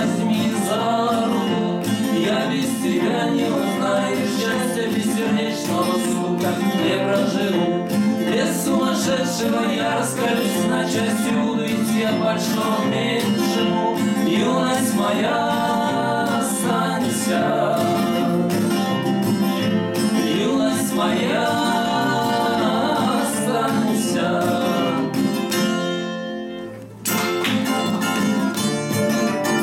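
Two men singing a bard song in harmony to two acoustic guitars, a nylon-string classical and a steel-string with a capo, fingerpicked. Near the end the singing stops, the sound dips for a moment, and the guitars carry on alone.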